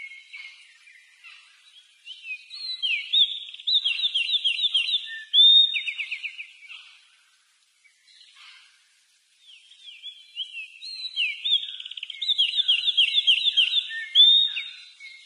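A songbird singing two long song phrases of rapid chirps and trills, each lasting about four seconds, with a short pause between them.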